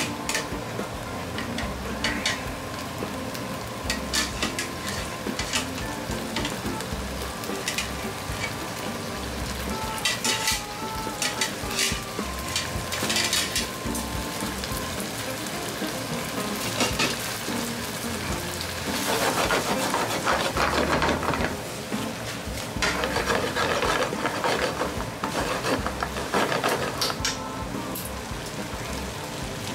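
Linguine being stirred and tossed into an eggplant and mushroom meat sauce in a frying pan over a gas flame, the sauce sizzling steadily. Bouts of utensil scraping and clatter against the pan come about ten seconds in and again through the second half.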